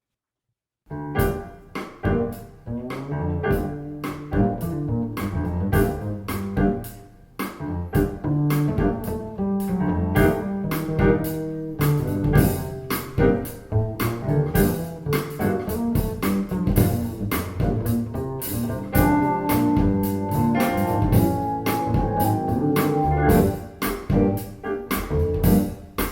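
Instrumental jazz-pop passage with double bass, keyboard and drums, starting abruptly about a second in, played back through a pair of KEF LS50 bookshelf speakers.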